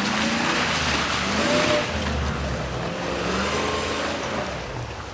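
A classic first-generation Range Rover's engine revving under load as it climbs a muddy off-road slope. The pitch rises at the start and again about three seconds in. A loud rush of tyres churning mud and leaves is strongest in the first two seconds.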